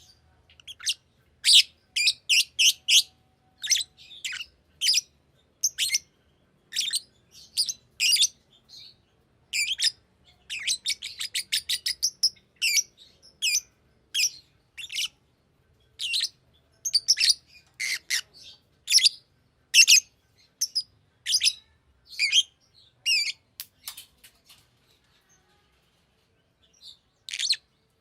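Green lovebird chirping: quick runs of short, sharp, high-pitched chirps, breaking off for a few seconds near the end before starting again.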